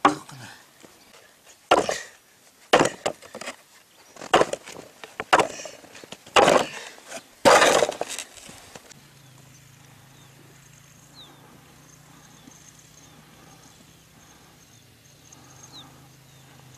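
A series of about seven sharp knocks and crunching cracks as dried yak dung cakes are kicked and broken loose from the frozen ground. After about nine seconds they stop, leaving only a faint steady low hum.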